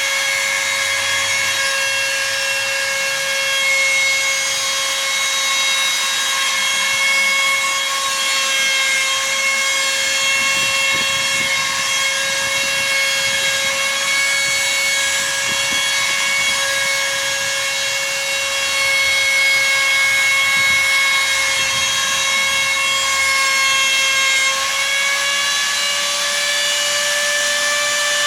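CNC router spindle running with a steady high whine while the machine cuts; its pitch steps up slightly near the end.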